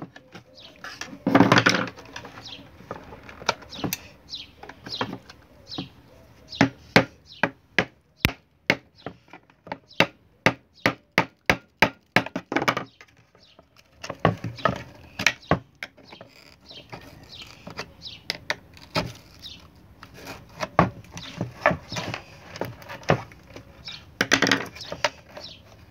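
Small hammer tapping on a screwdriver to drive it under an LED floodlight's glued-down driver box and pry it loose, with scraping as the blade works under the box. The taps come as a run of sharp knocks, quickest in the middle.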